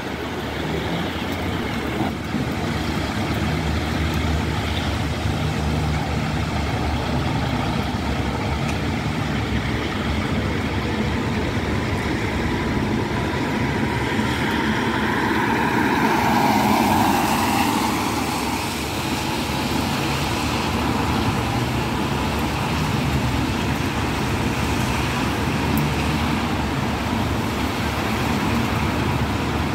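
MAN fire engine's diesel engine idling steadily, blue lights on, ready to turn out. About halfway through, a vehicle passes on the wet road with a swell of tyre hiss.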